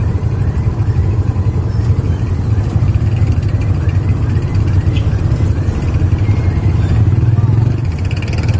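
Motor-tricycle (tuk-tuk) engine running steadily with road rumble, heard from on board. A faint high chirp repeats about twice a second.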